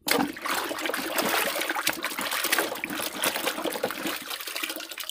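Water splashing and sloshing as plastic toy cars are scrubbed and swished by hand in a tub of soapy water. It starts suddenly and dies down near the end.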